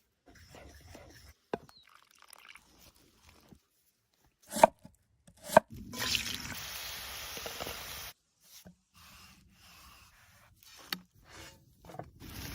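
Knife chopping food on a cutting board: scattered sharp knocks, two loud strikes about a second apart midway, then about two seconds of steady hiss.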